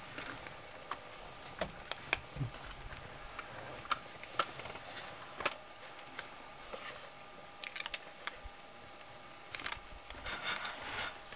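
Spotted hyenas chewing and cracking bones: irregular sharp cracks and crunches, roughly one every half second to a second, some louder than others.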